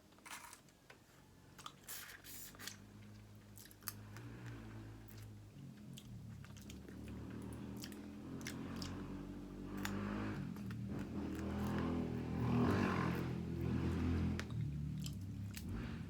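Close-up chewing and biting of food, with scattered wet mouth clicks at first, then steadier chewing that grows louder after about ten seconds.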